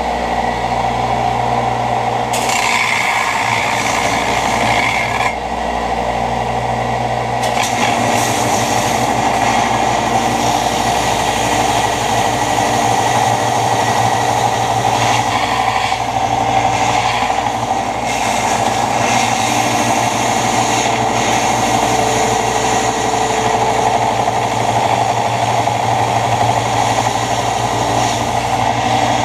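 Belt grinder running with a piece of steel from an old scythe blade held against the belt, giving a steady motor hum under a grinding hiss. The hiss shifts in strength a few times in the first several seconds, then carries on steadily.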